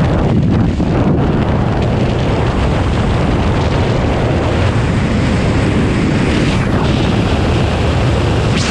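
Freefall wind rushing over a skydiver's camera microphone: loud, steady buffeting, heaviest in the deep range.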